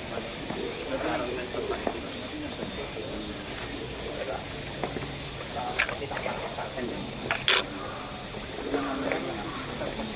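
A chorus of cicadas singing in the trees, one high, even wall of sound that never lets up. Faint voices of people nearby and a couple of light ticks sit underneath.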